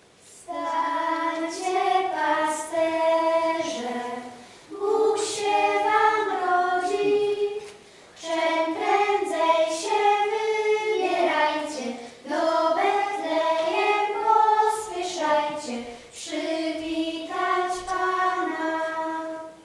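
Children's choir singing a slow song together in several phrases of three to four seconds, with short breaks for breath between them.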